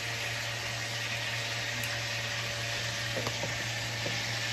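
Steak frying in butter in a pan on the stove, a steady sizzling hiss, with a steady low hum underneath.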